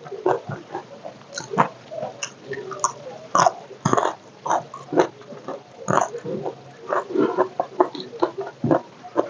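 Close-miked mouth eating: chewing and crunching of crispy food, a quick irregular run of crackling bites and chews.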